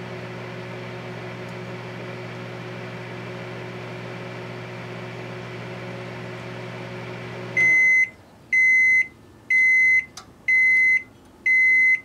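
A 700-watt Rival microwave oven runs with a steady hum, which cuts off about three-quarters of the way through. Five loud, evenly spaced beeps follow, about one a second, signalling that the cooking cycle has ended.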